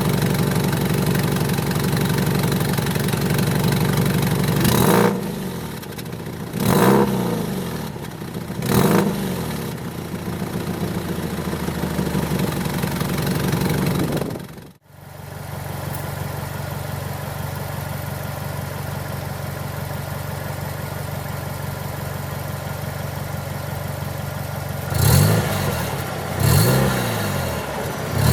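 Subaru Impreza WRX STI (GDB) idling through its titanium exhaust, revved in three short blips about two seconds apart. After a brief break it idles steadily again, with more quick blips near the end.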